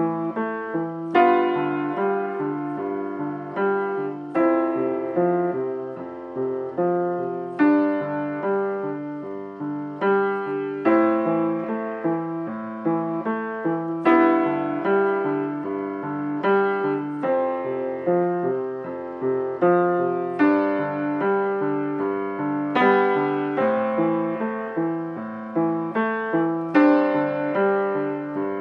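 Upright piano played with both hands: a steady, even flow of notes, with stronger accented notes about every couple of seconds.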